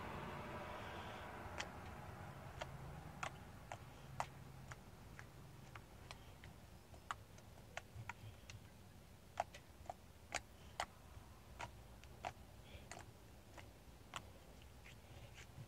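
Glitter-filled slime being worked by hand, giving small sharp clicks and pops at an irregular pace of about one or two a second.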